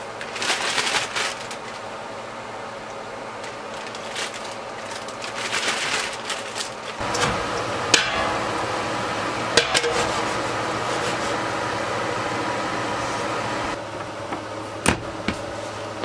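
Kitchen handling sounds of cut puffball mushroom pieces on a plastic cutting board. About seven seconds in comes a steady noise of mushroom slices frying in a pan on a gas stove, with a few sharp knocks of the pan and utensils. The frying noise stops near the end.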